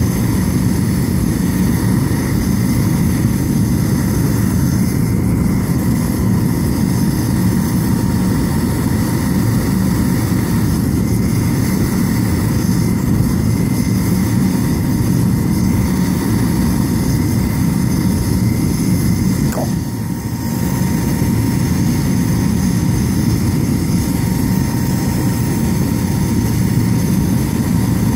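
Waste-oil foundry burner firing flat out into the furnace: a steady low roar with a thin steady whine above it, dipping slightly about twenty seconds in. The furnace is hot enough to melt the copper pipe in the crucible in about a minute.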